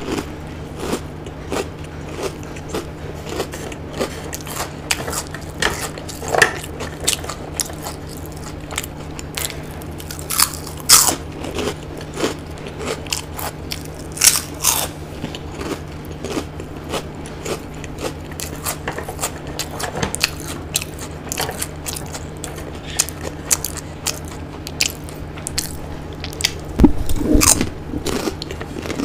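Close-miked eating: chewing and mouth sounds with scattered crunchy bites of crisp fried food, over a steady low hum. A louder knock comes near the end.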